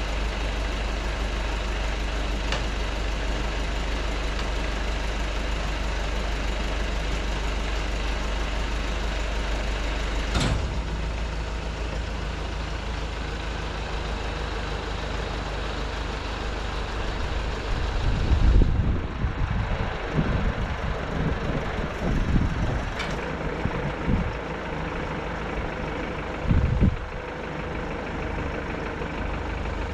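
Nissan Cabstar truck's diesel engine idling while it drives the Multitel boom lift's hydraulics. A sharp click comes about ten seconds in, after which the deep hum drops and a steadier, lighter idle goes on. Irregular low thumps follow in the second half, the loudest near the end.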